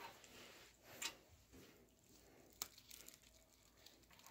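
Faint crinkling and rustling of plastic cling wrap being handled and peeled off a frozen pizza, with two brief sharper crackles, about a second in and again past halfway.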